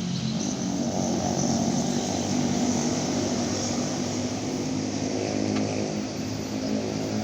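Intercity coach bus engine running, a steady low drone.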